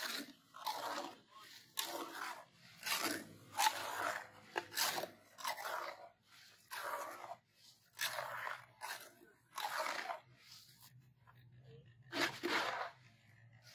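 Small hand trowel scraping and scooping a gritty cement-and-sand mix against the ground, in repeated strokes about one a second.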